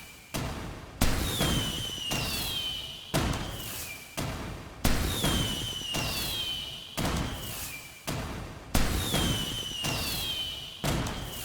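Fireworks going off: about seven sharp bangs a second or two apart, each followed by a rumbling tail and a high falling whistle.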